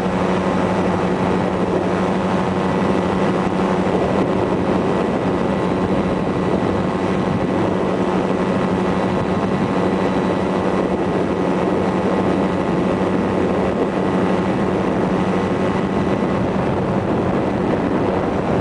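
Engine and propeller of a motorized hang glider (ultralight trike) running at a steady cruise, one unchanging hum, with wind rushing over the microphone.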